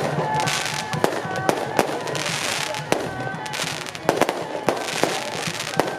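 Firecrackers going off in sharp, irregular bangs, with bursts of crackling hiss between them. A melody plays over them, its pitch stepping from note to note.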